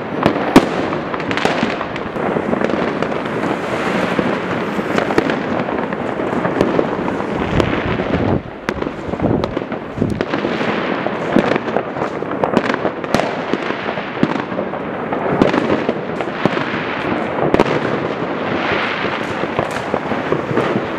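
Fireworks and firecrackers going off all around without let-up: a dense stream of overlapping bangs, cracks and pops, easing only briefly about eight seconds in.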